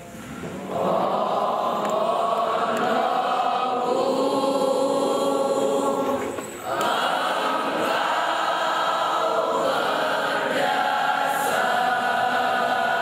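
A large group of students singing a slow school hymn together, in long held notes. The singing begins about a second in and pauses briefly for breath about six and a half seconds in.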